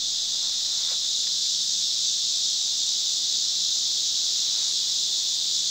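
Chorus of insects making a steady, high-pitched shrill drone.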